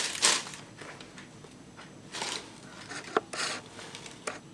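Short bursts of rustling and a few light clicks from the box and its packing being handled while the sneakers are taken out.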